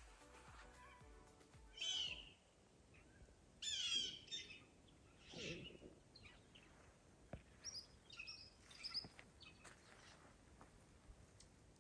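Several birds calling: a loud call about two seconds in, a quick run of falling calls about four seconds in, another call soon after, then scattered short chirps.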